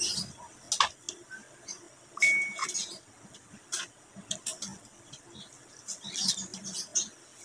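Close-up mukbang eating sounds: lip smacking, chewing and sucking on boiled chicken picked off the bone by hand, heard as a scatter of short wet clicks. A brief high squeak comes a little over two seconds in.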